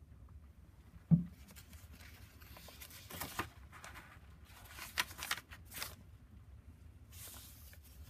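Paper pages of a handmade collage journal being turned and handled, with rustling and crinkling as a folded paper form is opened. A single dull thump about a second in.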